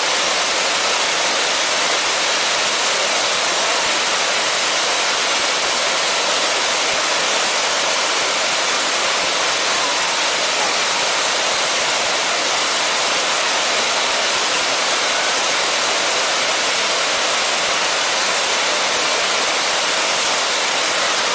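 Waterfall at Hanging Lake pouring steadily into the pool, a constant even rush of falling water.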